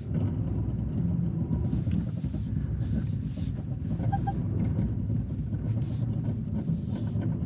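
The 2021 Infiniti QX80's 5.6-litre V8 running steadily under load in four-wheel-drive low as the SUV crawls over rough off-road ground. Short scraping sounds come every second or so over the engine.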